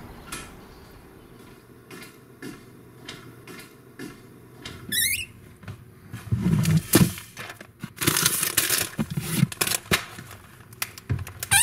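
Soft, evenly spaced footfalls, then a brief wavering high squeak about five seconds in, followed by crinkling of a plastic bag and knocks of a plastic squeeze bottle being handled, with another squeak at the very end.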